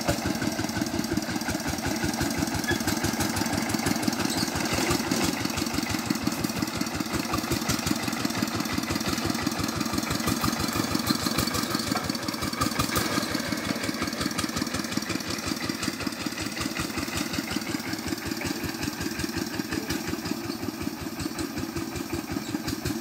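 Single-cylinder diesel engine of a two-wheel walking tractor chugging steadily under way, its rapid even firing beats running without a break. It grows a little fainter over the last few seconds as the tractor pulls away.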